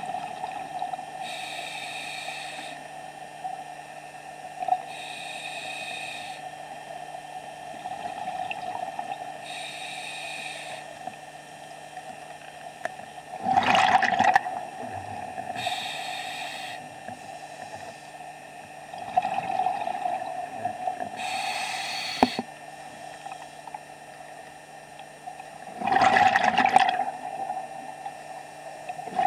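Scuba diver breathing through a regulator underwater: hissing inhalations every few seconds and two loud bursts of exhaled bubbles, one about halfway through and one near the end, over a steady hum.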